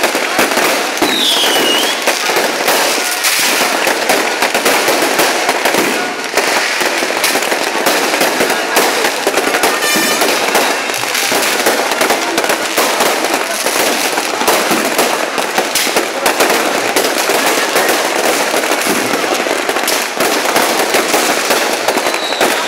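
Many fireworks and firecrackers going off at once: a loud, continuous crackle of overlapping bangs and pops, with a short falling whistle about a second and a half in.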